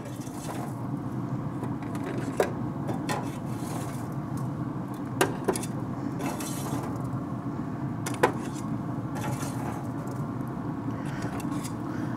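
Long metal grill tongs clicking and scraping against the grill grate and a steel rib rack as racks of smoked ribs are lifted and stood in it, a few sharp clicks over a steady low whir.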